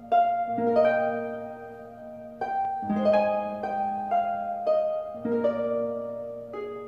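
Soft instrumental background music: a slow melody of harp-like notes, each starting sharply and ringing out as it fades, over a few low bass notes.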